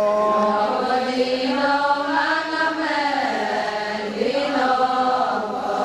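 Voices chanting the song of the Adi Ponung dance, in long drawn-out phrases whose pitch rises and falls slowly.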